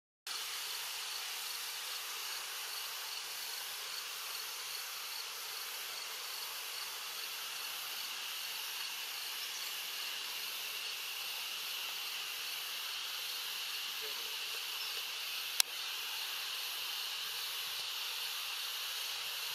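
Steady insect chorus, a continuous high hiss with faint held tones, over wetland ambience. One sharp click about three quarters of the way through.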